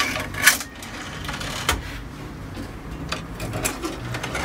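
Throttle levers on a derelict airliner's throttle quadrant pushed back and forth by hand, giving scattered metal clicks and clunks, the sharpest about half a second in.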